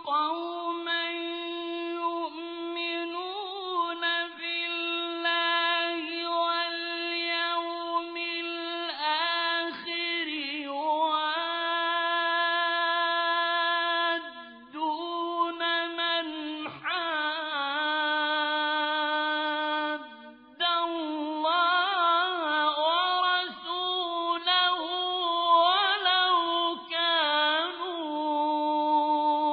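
A male Quran reciter chanting in the melodic tajweed style: one high voice holding long, ornamented notes with winding runs, breaking off briefly for breath a couple of times.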